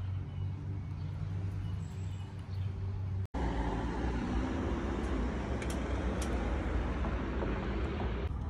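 A steady low hum, then an abrupt cut about three seconds in to a steady rush of road traffic noise.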